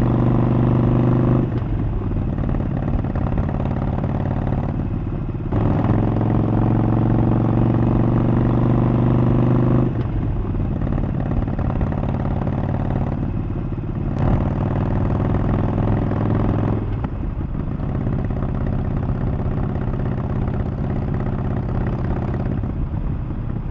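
Harley-Davidson Sportster 1200 V-twin running through Vance & Hines Mini Grenades exhausts while being ridden. Loud on-throttle pulls with a slowly rising pitch, the longest from about 5 to 10 seconds in, alternate with quieter stretches of easier, off-throttle running.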